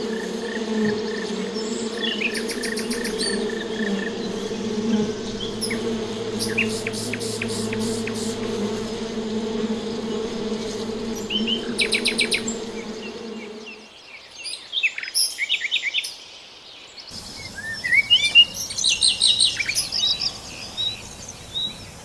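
Honeybees buzzing steadily in a dense mass, with small birds chirping over them. The buzz fades out a little past halfway, leaving a few bird calls, and near the end lively birdsong starts over a faint hiss of running water.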